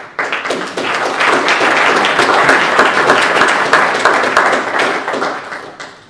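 Audience applauding, starting suddenly and dying away near the end.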